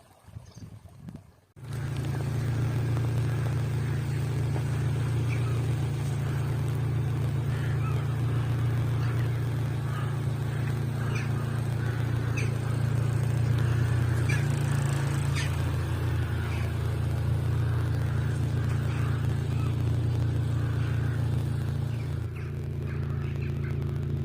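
A steady low engine-like drone that starts abruptly about a second and a half in, with short faint high calls scattered over it.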